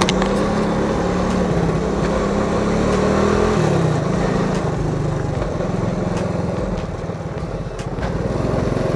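Suzuki Shogun 110 motorcycle's warmed-up single-cylinder four-stroke engine running steadily under way at low speed. Its pitch drops slightly about three and a half seconds in.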